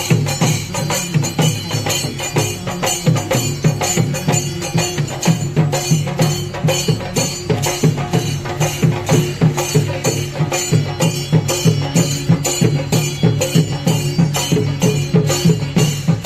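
Chenda melam, a Kerala temple-style drum ensemble, playing for a procession: fast, evenly repeated drum strikes with bright metallic hits in a steady rhythm.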